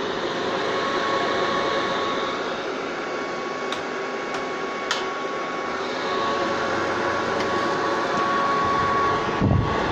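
Vintage soft-bonnet hair dryer's blower motor running, a steady rush of air with a high whine, just after spinning up to speed. A few light clicks come about four to five seconds in, and a couple of low thumps near the end.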